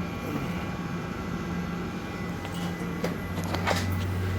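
The MD-83's aft-fuselage machinery, its air conditioning pack and APU, running with a steady low hum that grows stronger about three seconds in, with a few light rattles near the end.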